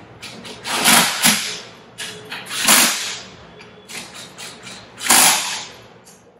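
Cordless impact driver running in several short bursts, each under a second, as it tightens the bolts of a bolted metal pump's top manifold.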